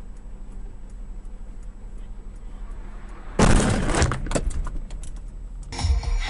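Low steady hum heard from inside a vehicle with faint regular ticking, then about three and a half seconds in a sudden loud crash of a vehicle collision, followed by a second of clattering and knocks.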